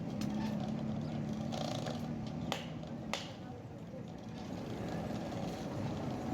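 A steady low mechanical hum with two sharp knocks about half a second apart, midway through.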